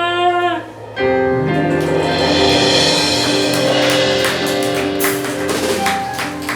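Live jazz quintet ending a ballad: a held final vocal note stops about half a second in, then piano, guitar, bass and drums come in together on a sustained closing chord with a swelling cymbal. Near the end come a few separate drum and cymbal strokes.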